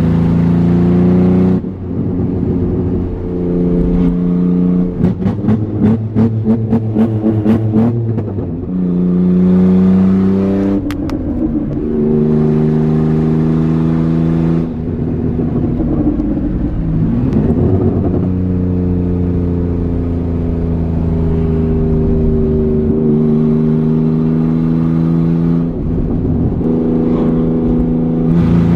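Ford Probe GT's 2.5-litre Mazda KL V6 running with no exhaust system fitted, loud and raw while driving, its pitch falling and climbing with throttle and gear changes. About five to eight seconds in, the engine note pulses rapidly, and around sixteen seconds it dips and then climbs again.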